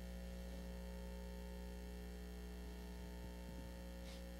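Steady electrical mains hum from the sound system, with a brief faint hiss near the end.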